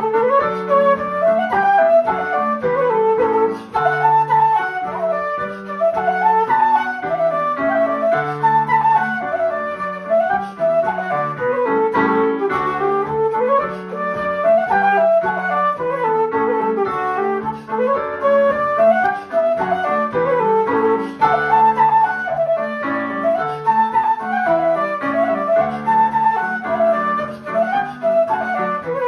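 Irish traditional tune on a keyed wooden flute, a fast, ornamented melody, over chords on a digital piano.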